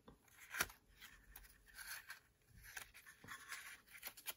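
Faint handling of a small velvet-covered hinged jewelry box and its metal stick pin: light scraping and rubbing with a few small clicks, the sharpest about half a second in.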